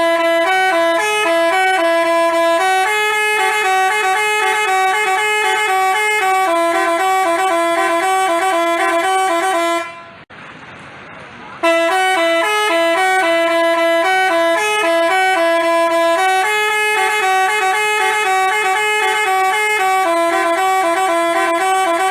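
Telolet basuri musical horn playing a tune of stepped horn notes, in two long phrases with a short break about ten seconds in.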